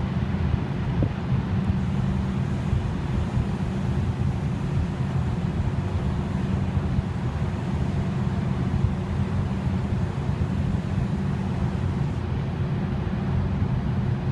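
A steady low engine drone with a constant hum, unchanging throughout.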